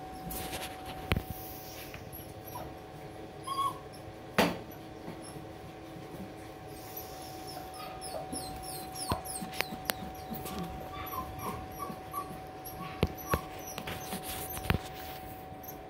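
Young puppies playing on a tile floor: scattered clicks and knocks, a loud knock about four and a half seconds in, and short high whimpers and yips, with a faint steady tone underneath.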